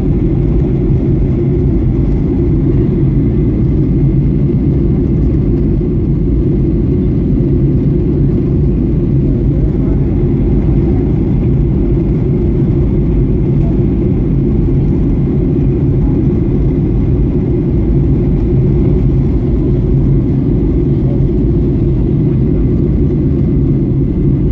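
Steady jet airliner cabin noise on descent: the constant low rumble of engines and airflow heard through the fuselage, with a faint steady whine above it.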